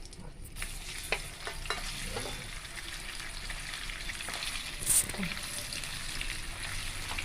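Pieces of steamed egg junnu sizzling as they shallow-fry in hot oil in a kadai, a steady frying hiss. A few light clicks come from a utensil stirring them in the pan.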